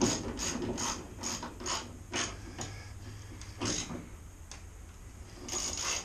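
Ratchet wrench clicking as a bolt on a tailgate assist mount is tightened. It goes in quick, even strokes of about three clicks a second, then thins to a few single clicks after about two seconds, with a last short run near the end.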